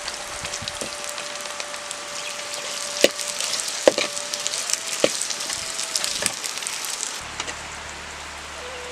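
Chopped onions frying and sizzling in a clay pot over a wood fire, with sharp knocks of a wooden spoon against the pot as they are stirred. The sizzle falls to a softer hiss a little after seven seconds in.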